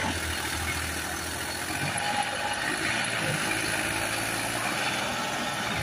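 Tractor diesel engine running steadily under load, straining to free a tractor stuck with its rear wheel dug into wet sand.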